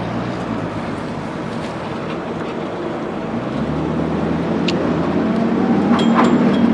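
A motor vehicle engine running steadily, its low hum growing louder from about halfway through.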